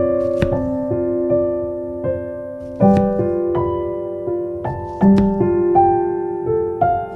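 Background music: a gentle keyboard melody with electric-piano tones and held notes, and a light percussive tick about every two seconds.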